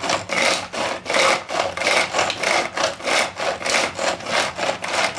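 Pull-cord manual food chopper being yanked over and over, a rasping whir with each pull as its blades spin in the plastic bowl, in quick, even strokes.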